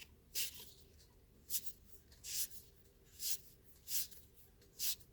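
Trading cards sliding off one another as a pack is flipped through card by card: a short, faint papery swish about once a second, six in all.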